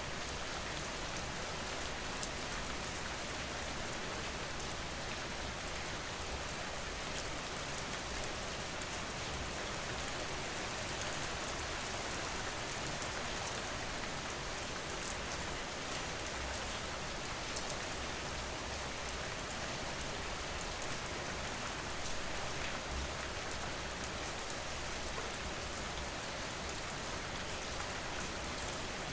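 Steady rain falling on a surface, an even hiss with scattered drop ticks and no thunder.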